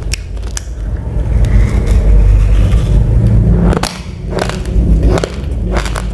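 Raw, uncooked rice grains crunched between the teeth while chewing: sharp cracks at irregular intervals over a heavy low rumble.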